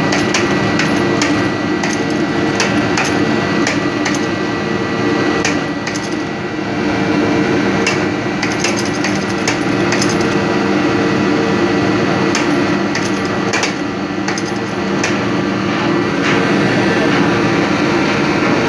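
Steady drone of running engine-room machinery, with irregular sharp metal knocks and clicks from a marine diesel cylinder liner being lowered on a chain hoist and fitted into the engine block.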